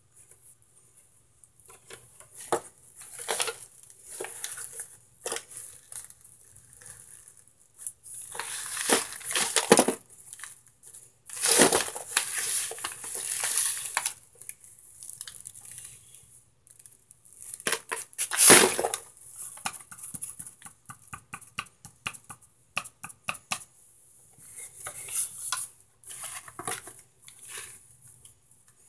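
Hard, dry chunks of microwaved cornstarch crunching and crackling as they are broken apart and dropped into a foil-lined aluminium pan, with foil and cardboard crinkling. The sound comes in irregular bouts, with the loudest crunches near the middle.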